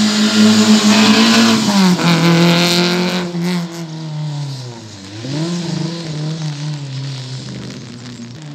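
Racing hatchback's engine pulling hard at high revs, with a quick drop in revs a little under two seconds in, like a gear change. Then a more distant racing engine dips sharply in revs about five seconds in and pulls up again.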